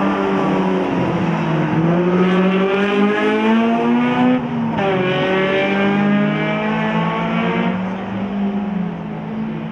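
Honda Civic hatchback race car's engine accelerating hard, its pitch climbing. About four and a half seconds in the pitch drops suddenly at an upshift, then climbs again before easing off near the end.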